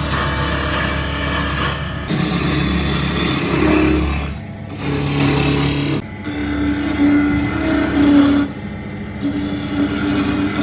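Wood lathe running with a hand chisel cutting into the spinning wood blank: a steady hiss of cutting over a wavering motor hum. The sound breaks off and changes abruptly several times.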